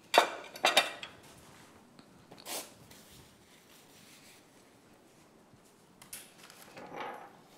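Kitchen utensils and dishware clattering: two sharp clinks right at the start, a lighter one about two and a half seconds in, and a scraping, rustling handling sound near the end.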